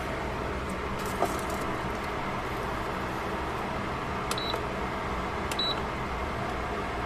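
A glass pan lid is set down on the pan with a short clatter about a second in, over a steady hiss. Two short high electronic beeps follow, each starting with a click, about a second and a half apart.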